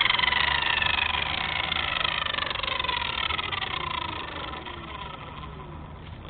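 Blade 230S V2 electric RC helicopter spooling down after the flight: the brushless motor's whine and the rotor fall steadily in pitch and fade away.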